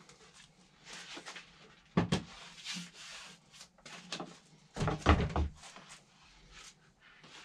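Knocks and thuds with rustling and scraping as a large perforated panel is handled and moved about, with a sharp knock about two seconds in and a louder cluster of thuds around five seconds.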